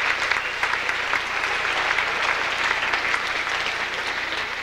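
Audience applauding, many hands clapping, gradually dying down.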